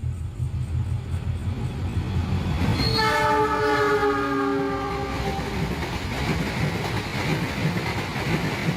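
A train horn sounding for about two seconds, several tones at once, sliding slightly down in pitch, over a steady low rumble.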